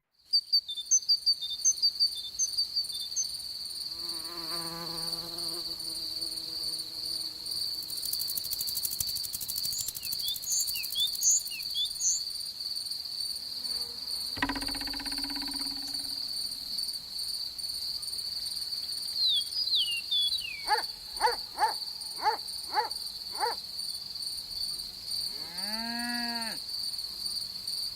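Crickets trilling in one steady high note, with scattered short bird chirps and a few other animal calls over it.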